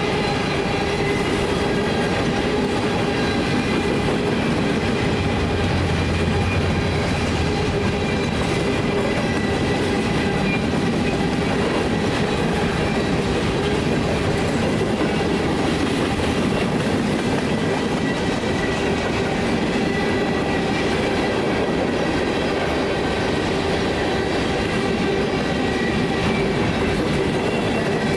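Covered hopper cars of a freight train rolling past close by: a steady, even rumble of steel wheels on rail with several constant ringing tones over it.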